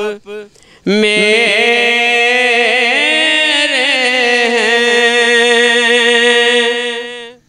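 A man singing a naat unaccompanied. After a short breath pause near the start, he holds one long ornamented phrase that rises in the middle and settles back before fading out at the end.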